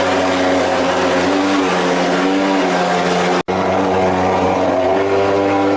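Portable thermal fogging machine's pulse-jet engine running with a steady, loud drone, spraying insecticide fog against dengue mosquitoes. The drone cuts out for an instant about three and a half seconds in, then carries on.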